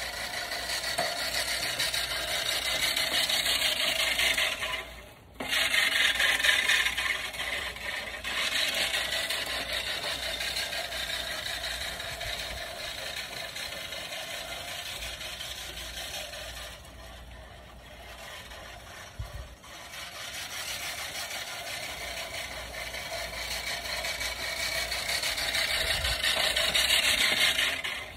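Manual push reel mower, its spinning reel blades cutting grass as it is pushed across the lawn. The sound swells and fades as the mower comes near and goes away, with a brief stop about five seconds in.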